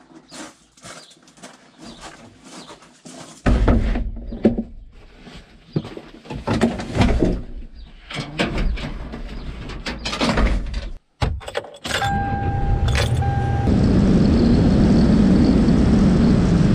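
Irregular knocks and clunks, then a vehicle running with a steady low rumble. About twelve seconds in, a short steady electronic tone sounds.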